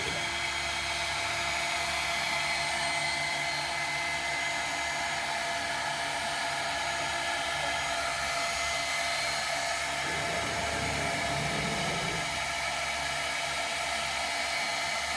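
The spindle of a 5 Prime 5050-20 five-axis CNC router running with a steady high whine while a 1/8-inch bit mills screw threads around a rod turned on the C axis.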